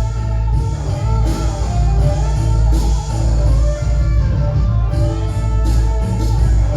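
Rock music, an instrumental passage with guitar over a heavy bass line.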